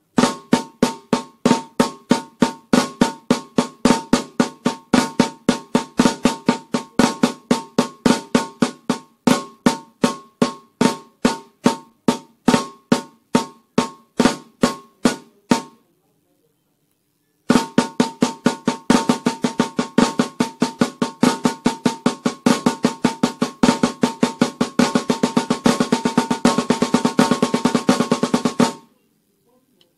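Snare drum struck with wooden sticks playing the flam paradiddle rudiment. After a pause of about a second and a half it plays the flam paradiddle-diddle, with the strokes closer together, and stops about a second before the end. Each stroke leaves a brief ring from the drum head.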